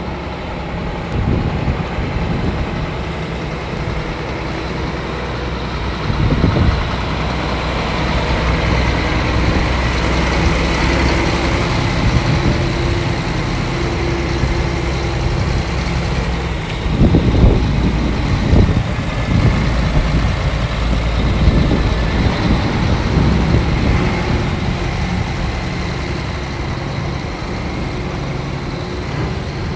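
Scania G420 tractor unit's six-cylinder diesel engine running steadily, with several louder low rumbles around the middle.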